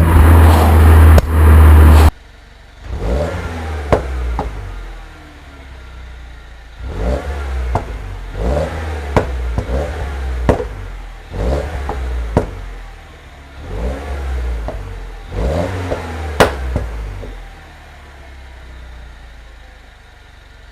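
Mini Cooper S R56's turbocharged 1.6-litre four-cylinder, on its stock exhaust, revved in a series of short blips; as each rev falls away the exhaust pops and crackles on the overrun, with one sharper bang late on. It opens with about two seconds of loud engine and wind noise that cuts off suddenly.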